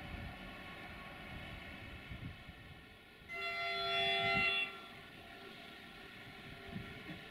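A train horn sounds one short chord of several notes, lasting about a second and a half, beginning about three seconds in, over a steady low hum.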